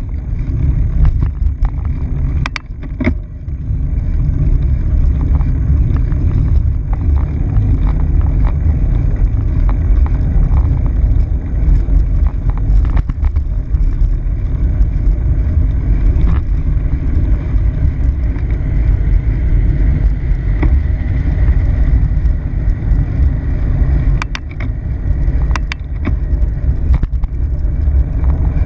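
Bicycle riding over a concrete bridge deck, heard through a handlebar-mounted camera: a heavy, steady rumble of wind on the microphone with tyre noise, and a few sharp clicks and rattles from the bike, a pair a few seconds in and several more near the end.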